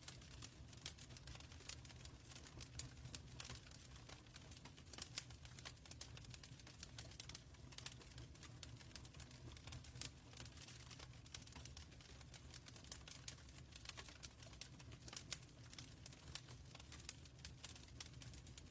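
Wood fire crackling in a fireplace: irregular quick clicks and sharper pops over a soft, steady low rumble of the burning.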